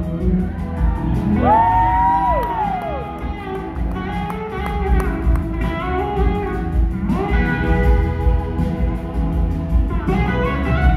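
Live rock-blues band playing, led by an electric slide guitar solo over bass and drums. About two seconds in, a long sliding note rises, holds and falls away, and another slide rises again near the middle.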